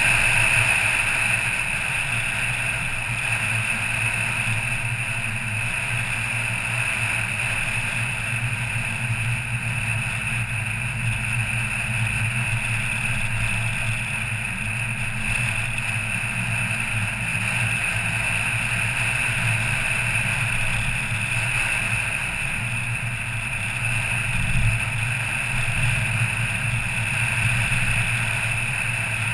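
A car cruising at steady speed: a steady low engine hum mixed with tyre and road noise, slightly louder in the first second.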